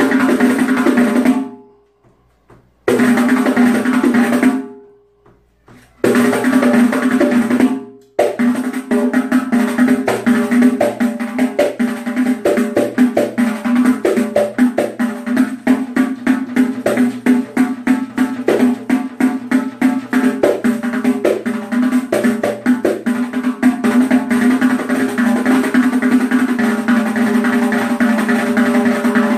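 Pandeiro solo: three single strokes that ring on and die away, with short pauses between them, then from about eight seconds in a fast, continuous rhythm of ringing head strokes and jingle rattle.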